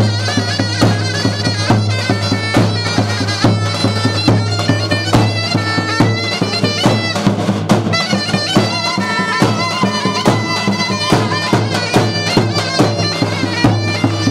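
Davul and zurna playing Turkish folk music: a reedy wind melody over regular strikes of the big bass drum.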